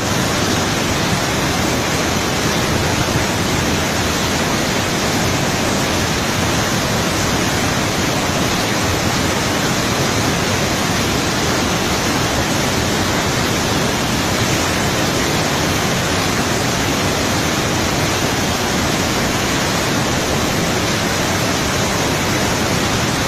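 Floodwater rushing through the open gates of a river barrage: a loud, steady roar of churning water.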